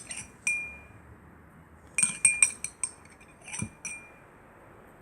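A spoon clinking against a bowl in short ringing taps while slime ingredients are put in and mixed: one tap about half a second in, a quick run of several around two seconds in, and a few more near four seconds.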